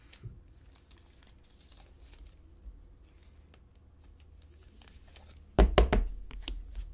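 Soft plastic rustling as a trading card is slid into a clear penny sleeve and a rigid top loader. About five and a half seconds in comes a quick burst of sharp clicks and knocks as the plastic holder is handled and set down on the table.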